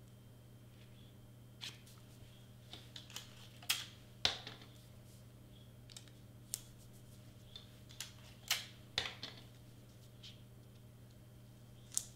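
Hands pressing and smoothing clear tape over the seams of large cardstock pieces: scattered crinkles and taps of the paper at irregular intervals.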